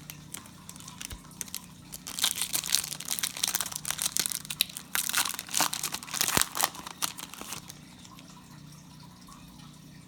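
Plastic trading-card pack wrapper crinkling and tearing as it is ripped open, a dense crackle starting about two seconds in and dying away past the middle, over a steady low hum.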